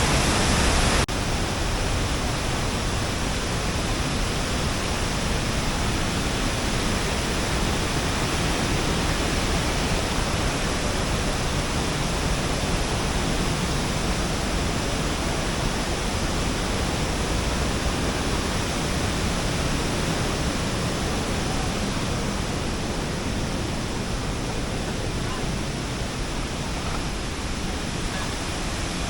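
Waterfall cascades rushing steadily, the level stepping down slightly about a second in.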